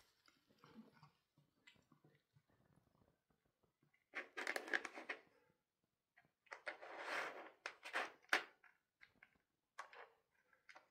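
Plastic treat puzzle being pawed and nosed by a cat: two bursts of clattering and rattling, about 4 s and 6.5 s in, then a few sharp clicks near the end.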